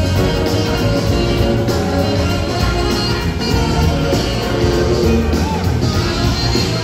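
A large rock band playing live, with electric guitar, saxophone and trombones over drums, bass and organ, heard from the audience.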